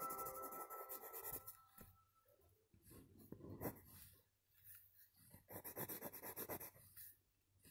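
Faint scratching of a coloured pencil scribbling on paper in quick back-and-forth strokes, in two short spells, about three seconds in and again past the middle.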